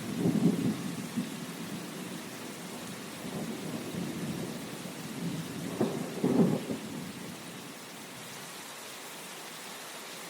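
Steady rain hiss, with two low rumbling swells: one about half a second in and a louder one around six seconds in.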